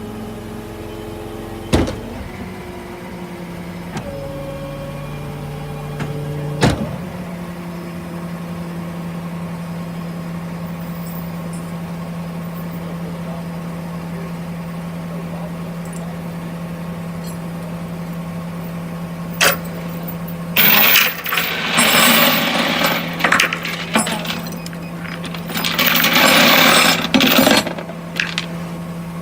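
Truck engine idling steadily, with a few sharp clicks. About two-thirds of the way through, loud irregular bursts of metal rattling and clanking begin.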